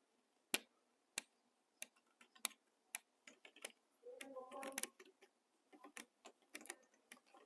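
Faint sharp clicks and taps from hand weaving at a tapestry loom, about one every half second at first and then more irregular, with a brief creaking sound about four seconds in.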